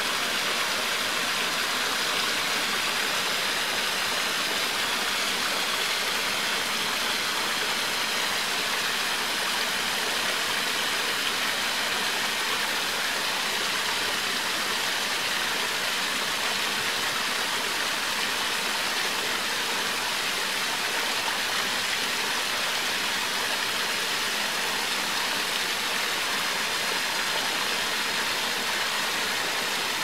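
Waterfall: a steady rush of falling water that holds even throughout.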